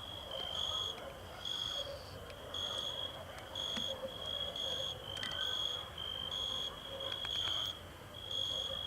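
Cricket chirping outdoors at night: a high-pitched trill repeated in pulses about once a second.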